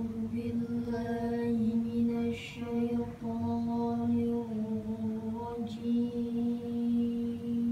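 A child qori chanting a Qur'an recitation (tilawah), drawing out one long melodic phrase held close to a single pitch, with small dips and steps in the note.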